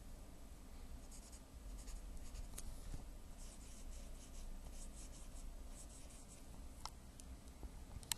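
A drawing tool scratching on paper in short, faint strokes, with a few sharp ticks, one of them right at the end.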